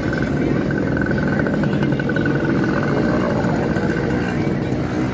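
Steady, loud rumble of a large crowd moving on foot, with a thin high tone pulsing through the first three seconds.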